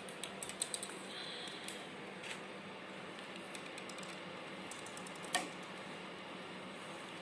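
Light clicks and taps of equipment being handled, then a single sharp snap about five seconds in with a brief ring after it, the release of an arrow from a bow.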